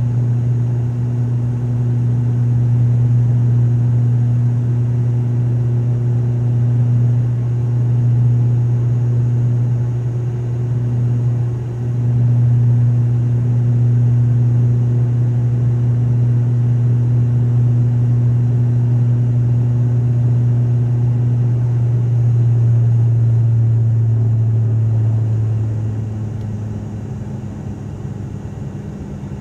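Steady propeller drone inside the cabin of an ATR turboprop airliner in flight: a loud, even low hum with fainter overtones over a wash of engine and air noise. A few seconds before the end, the drone changes pitch and becomes quieter.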